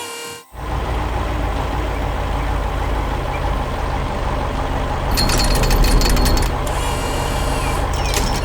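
Heavy construction-vehicle engine running steadily, with a rapid rattling, hammering stretch about five seconds in. A brief chime sounds at the very start.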